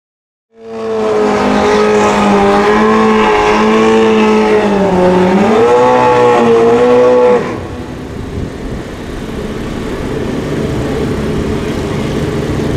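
Suzuki drag bike's engine held at high revs, its pitch wavering and dipping once. About seven seconds in it cuts off abruptly to a lower, rough engine rumble as the bike rolls slowly.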